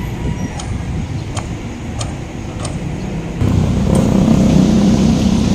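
Road traffic: a motor vehicle's engine rumbling nearby, growing louder about three and a half seconds in, with a few light ticks early on.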